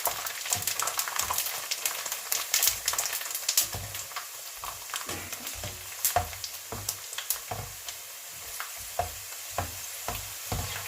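Dried macaroni deep-frying in hot cooking oil: a steady sizzle with many sharp crackling pops. The popping is dense for about the first four seconds, then thins to scattered pops, the sign that the macaroni is nearly done frying.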